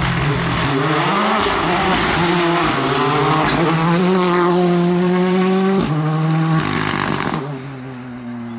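Ford Fiesta rally car's engine at full throttle, climbing in pitch with brief breaks at the gear changes as it passes close by. It holds high revs for a while, then fades as the car drives off near the end.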